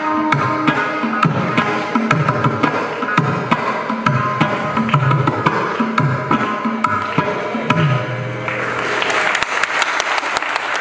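Mridangam and khanjira playing the closing strokes of a Carnatic song, with a few held violin notes above the drum tones. Applause breaks out about eight and a half seconds in and continues.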